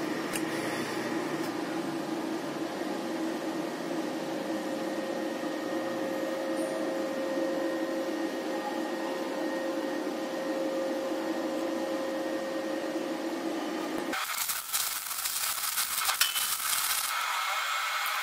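A steady mechanical drone with a fixed hum, cutting off about fourteen seconds in. It is followed by the crackle of stick arc welding, a 2.6 mm rod fusing a corner joint of square steel tubing.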